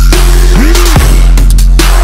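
Electronic background music with a heavy, steady bass and a synth note that rises and falls in pitch about halfway through.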